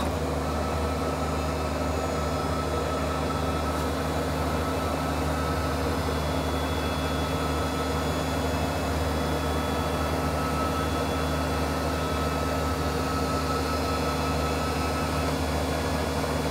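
ShopSabre PRO408 CNC router homing itself: its axis drives move the gantry along the table with a thin, steady whine over a constant low hum. The whine stops shortly before the end as the machine reaches its home position.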